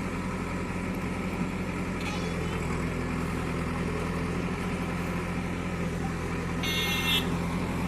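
A motor running steadily with a low hum, and a brief harsh burst of noise about seven seconds in.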